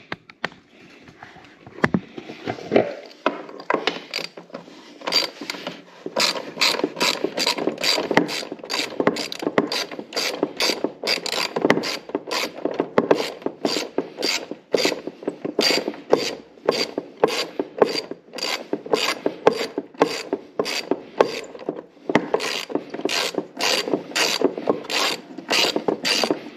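Hand socket ratchet clicking as it backs out a bolt on a zero-turn mower's deck cover, a quick run of sharp clicks about three a second with a few short pauses.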